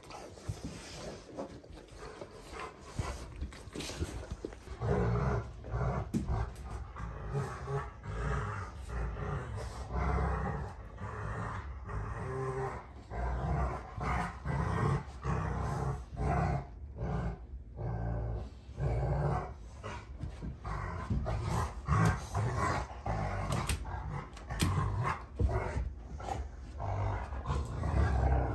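Two Rottweilers play-fighting, growling in many short, rough bursts that begin about five seconds in.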